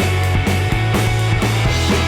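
Rock music with a driving beat and a heavy bass line.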